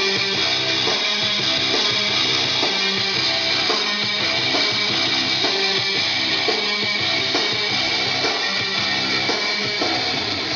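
Rock music with drums and electric guitar playing at a steady beat, cutting off suddenly at the end.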